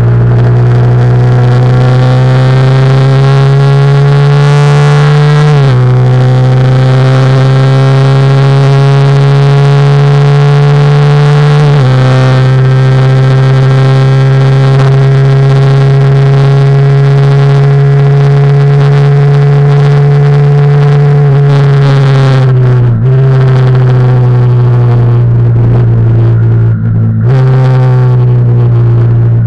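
Yamaha YZF-R15's single-cylinder four-stroke engine pulling hard at high revs, heard close up from the bike, over a rush of wind noise. The pitch climbs slowly under throttle and dips abruptly about six and twelve seconds in and again a little before the end, as gears change.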